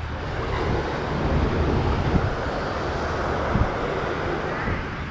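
Ocean surf washing on the shore, with wind buffeting the microphone in a steady low rumble.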